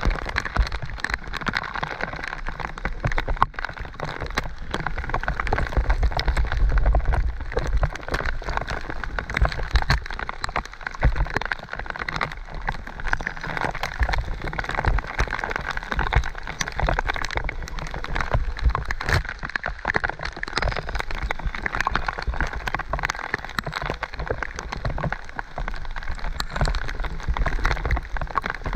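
Heavy tropical downpour: a dense crackle of rain spattering close to the microphone, mixed with splashes and knocks from a mountain bike riding fast over a wet, muddy trail. A low rumble, louder about six seconds in, runs underneath.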